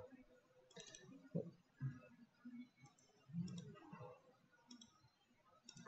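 Faint computer mouse clicks, a handful of them at irregular intervals, over near-quiet room tone.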